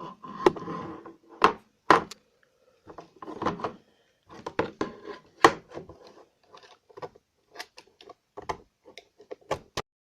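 Hand scraping and scratching at a plastic housing cover to clean off burn marks: irregular short scrapes and sharp clicks, stopping just before the end.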